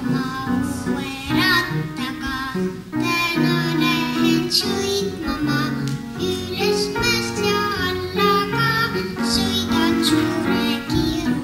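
Young boy singing solo into a microphone over an instrumental accompaniment.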